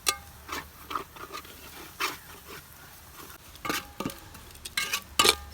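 A spoon stirring spice masala in a small metal pan, knocking and scraping against it in irregular strokes, some with a brief metallic ring.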